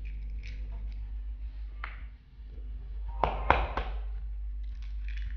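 An egg knocked against the rim of a mixing bowl to crack it: a quick cluster of sharp taps about three seconds in, with fainter clicks of eggshell being handled before and after, over a low steady hum.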